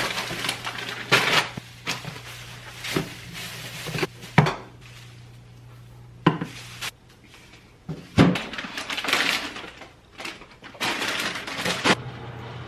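Household objects being handled: a series of sharp knocks and clatters, with rustling between them.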